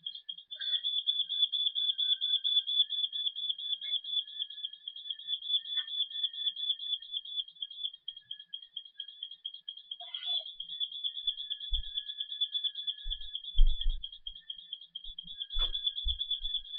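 Household smoke detector alarm sounding: a high, rapidly pulsing electronic beep, unbelievably loud, set off by smoke from a pan overheating on the stove. A few dull thumps come in the last few seconds.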